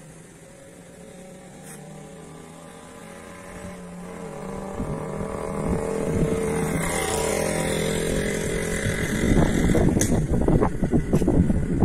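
A vehicle engine on the road, growing louder over several seconds as it passes. In the last few seconds, wind gusts buffet the microphone in an irregular low rumble.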